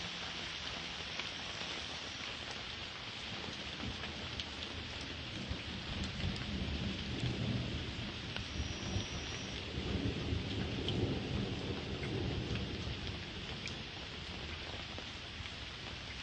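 Steady rain falling, with a long roll of thunder that builds about five seconds in, is loudest around ten to twelve seconds in, and dies away near the end.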